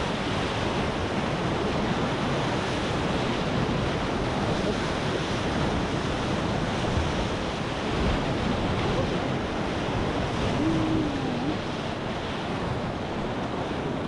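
Whitewater rapid rushing steadily, a dense, even roar of churning river water, with wind buffeting the microphone.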